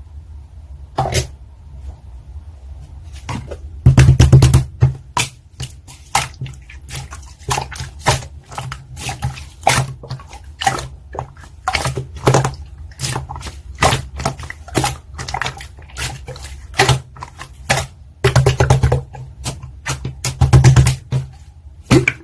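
Slime being squeezed and poked by hand, giving irregular wet clicks and air-bubble pops, a few a second, with short bunches of quicker, louder pops now and then.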